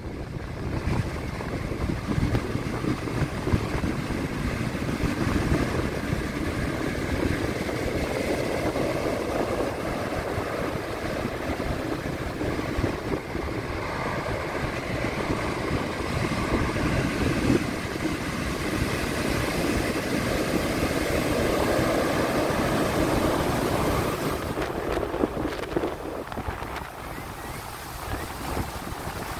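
Heavy surf from a storm swell: big waves breaking and washing up the beach in a steady rush of water that swells louder twice and eases near the end.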